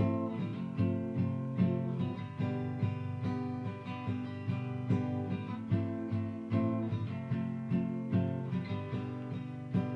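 Acoustic guitar strummed steadily, about two strums a second, with no singing: an instrumental passage of the song.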